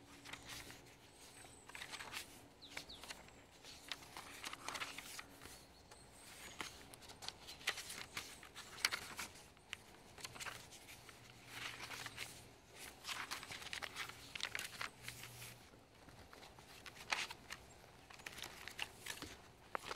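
Pages of a handmade junk journal made of old book paper, card and fabric being turned by hand: repeated paper rustles and soft flaps in clusters.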